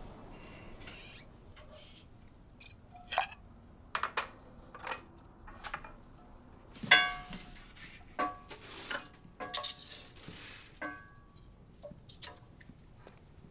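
Bowls and dishes clinking and knocking together as they are taken out and handled. It is a series of sharp clinks, each ringing briefly, with the loudest about seven seconds in.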